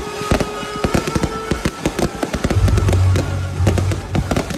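Aerial fireworks bursting and crackling: a rapid string of sharp bangs over loud music, whose heavy bass comes in about halfway through.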